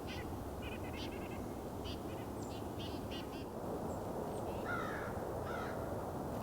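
Wild birds calling: a run of quick, high-pitched notes from small birds, then two harsher, lower calls about five seconds in, over a steady low background noise.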